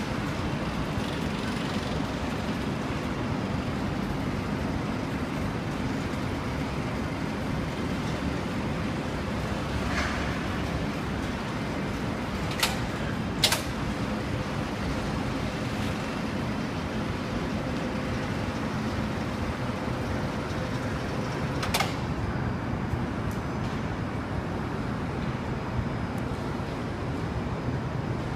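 Steady background rumble with a few short, sharp clicks, about four in all.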